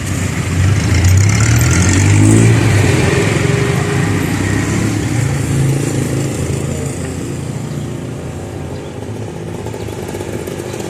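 A motor vehicle's engine passes on the street, swelling to its loudest about two seconds in and then fading away.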